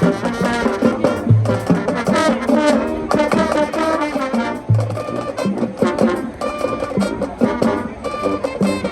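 High school marching band playing loudly, with brass carrying the melody over marching percussion.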